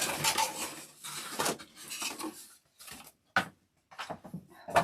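Small craft tools and their plastic packaging being handled: irregular clicks, light clatter and rustling, with a couple of sharper clicks in the second half.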